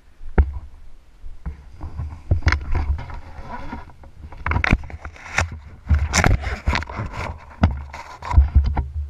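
Wind buffeting a helmet-mounted camera's microphone, with irregular rustling, scraping and clicking of parachute gear being handled after landing.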